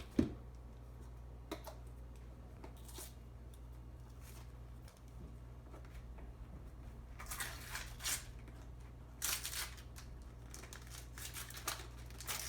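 Gift packaging rustling and tearing as a present is unwrapped, in several short bursts mostly in the second half, over a steady low hum and a few small clicks.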